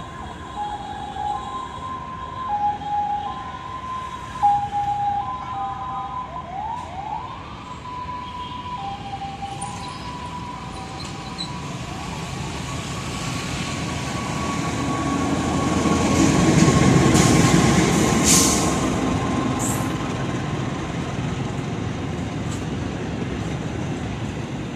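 Indonesian CC 206 diesel-electric locomotive hauling a passenger train as it approaches and passes, its rumble building to the loudest point about two-thirds of the way in, then the carriages rolling over the track. In the first third a two-tone warning alternates steadily between a high and a low note.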